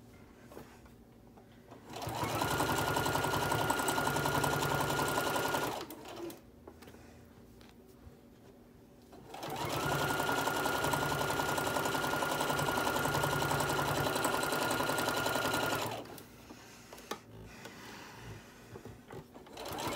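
Electric sewing machine stitching in two runs, one of about four seconds and a longer one of about six seconds, each with a steady motor whine, stopping between them while the fabric is turned. Small handling clicks in the pauses.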